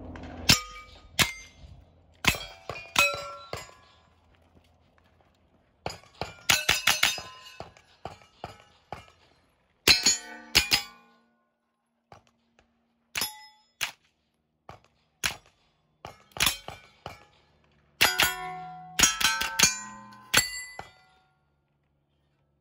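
Heckler & Koch MP5 9mm short-barreled rifle firing in short strings, each shot answered by the ringing clang of a steel target being hit. The shot groups come in bursts of a few rounds with pauses of a second or more between them.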